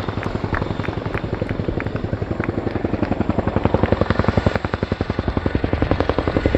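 Boeing Chinook HC.6 tandem-rotor helicopter in flight, its rotor blades beating in a rapid, even thudding pulse (blade slap), which grows louder about halfway through.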